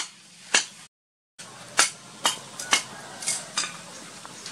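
Metal tongs clinking against a metal cooking pot as boiled potatoes are turned, about seven sharp clinks at irregular intervals. The sound cuts out for about half a second around one second in.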